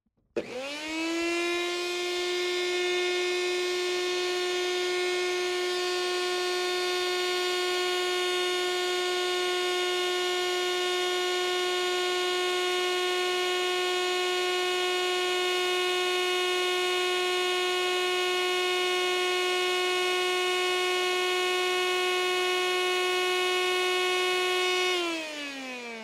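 Small electric appliance motor switched on, spinning up within a fraction of a second to a steady whine. It runs evenly, then is switched off near the end and winds down with falling pitch.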